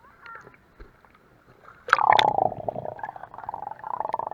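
Sea water splashing and gurgling in a rapid, muffled bubbling as an action camera goes under the surface, starting suddenly about two seconds in.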